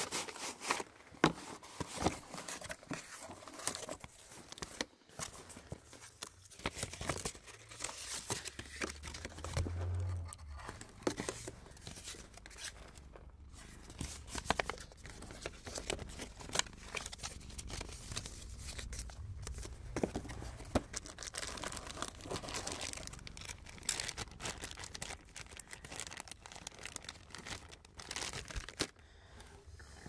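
Close-up paper and cardboard handling: a small cardboard film box opened and a folded paper leaflet unfolded, with crinkling, tearing-like rustles and many small irregular clicks and taps.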